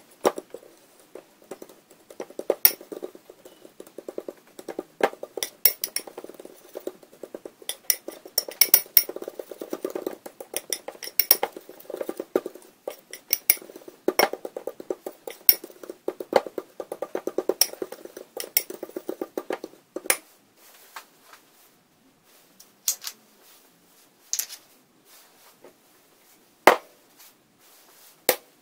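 A utensil stirring and scraping dry powder in a ceramic bowl, with rapid clinks against the bowl for about twenty seconds. After that only a few scattered clicks, and one sharp knock near the end.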